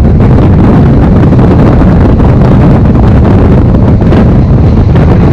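Strong wind buffeting the microphone of a camera held out of a moving passenger train's window, over the steady low rumble of the train running along the track.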